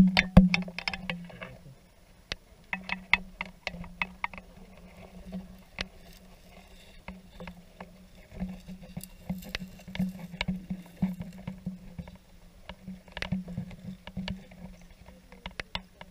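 Underwater sound picked up through a camera's waterproof housing: a muffled low hum that swells and fades, with scattered sharp clicks and knocks as the case moves through the water. The clicks are loudest about the first second in.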